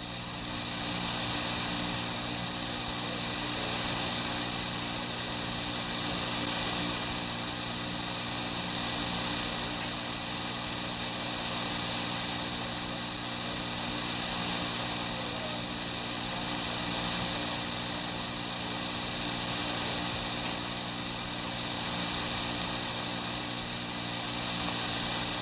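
Steady hum made of several fixed low tones, under a hiss, from an old police radio dispatch tape recording in a silent stretch between radio transmissions.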